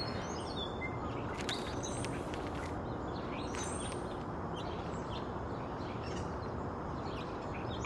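Outdoor ambience: a steady background hum with faint, scattered bird chirps.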